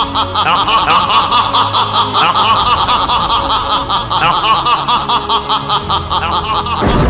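A man's long, menacing villain laugh, a rapid run of 'ha-ha-ha' pulses, over background music. It breaks off near the end as a loud low rumble begins.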